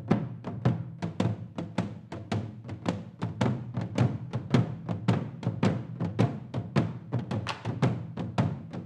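Korean traditional drumming ensemble playing a rapid, steady rhythm of drum strikes, several a second.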